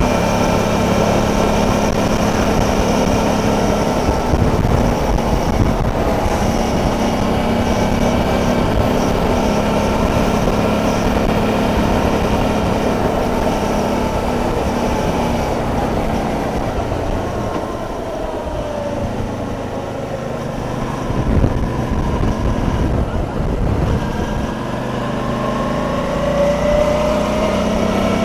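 A Suzuki DL650 V-Strom's V-twin engine running under way, with wind and road rush on the microphone. The engine note falls away about two-thirds of the way through, then climbs again near the end.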